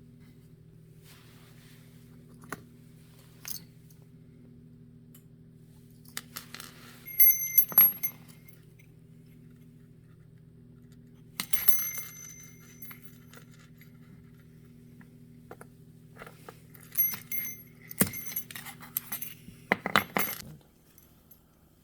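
Handmade wind chime clinking and ringing in three bursts, each strike leaving a short bright ringing tone, with the longest flurry near the end, over a steady low hum.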